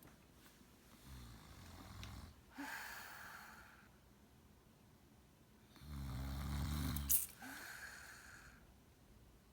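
Heavy snoring: a weaker low snore about a second in and a louder one about six seconds in, each followed by a breathy exhale.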